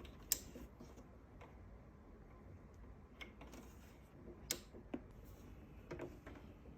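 Scattered light clicks and taps, about six spread over several seconds, the sharpest one just after the start.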